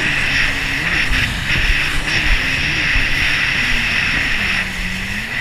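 Yamaha jet ski engine running under way, its pitch wavering up and down with the throttle and dropping about four and a half seconds in, with a steady hiss over it.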